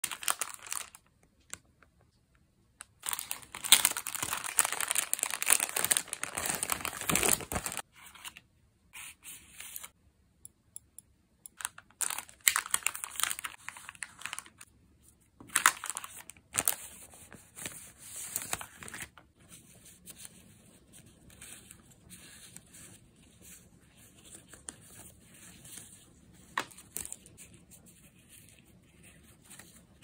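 Clear plastic packaging of sticker packs being torn open and crinkled by hand, loudest in a long stretch starting about three seconds in, then in shorter bursts. Later it gives way to faint rustling of paper stickers being handled.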